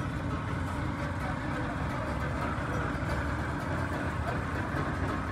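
Steady outdoor market ambience: a low, traffic-like rumble with indistinct voices in the background.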